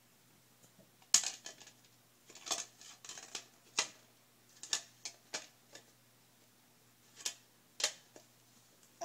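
Plastic Mr. Potato Head toy parts clacking against the hollow plastic potato body as a child handles them and pushes a piece into the top: about eight sharp, irregular clacks, the loudest about a second in.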